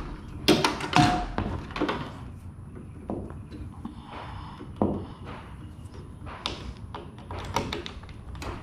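Scattered light knocks and taps of handling as an electrical power cord is wound around a perforated steel hanger strap, with a few clicks near the end as its plug is fitted into a ceiling outlet.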